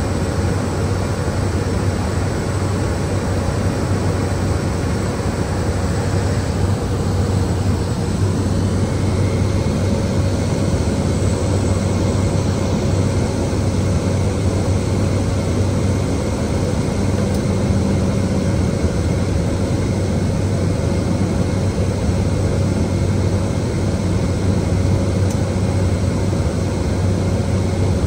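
Cessna Caravan's PT6A turboprop engine and propeller droning steadily in cruise, heard inside the cabin: a deep hum with a steady higher tone over it.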